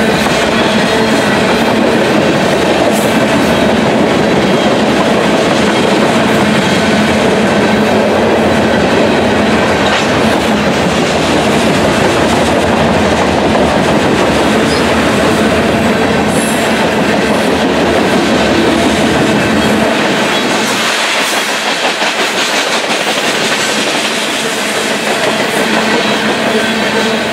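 Covered hopper cars of a Union Pacific freight train passing close at over 70 mph: a loud, steady rush of steel wheels running on the rails. The deep rumble thins about twenty seconds in.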